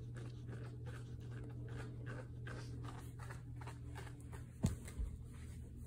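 Quiet room tone with a steady low hum and faint rustling, then two soft bumps near the end as the handheld phone is moved.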